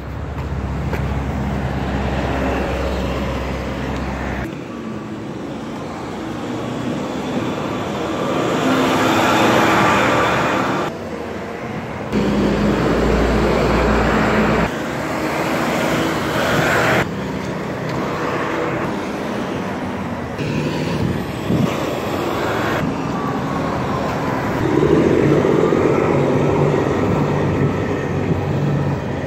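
Busy street traffic: cars and trucks driving past with engine drone and tyre noise, the sound changing abruptly several times. Near the end a tractor-trailer hauling a loaded flatbed passes close.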